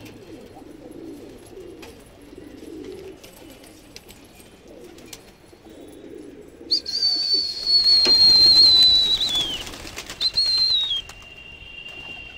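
Domestic pigeons cooing in courtship. About two-thirds of the way in they are cut across by a loud, high whistle, held about three seconds and dipping at the end, then a shorter second whistle that also drops away.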